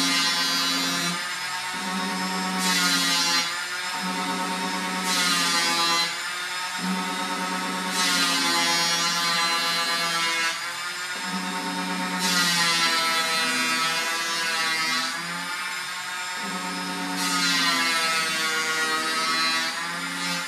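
Cordless palm sander running steadily with a motor whine while sanding the edge of a painted kitchen end panel. A louder sanding hiss comes and goes with each pass of a second or two, about six times. It is switched off right at the end.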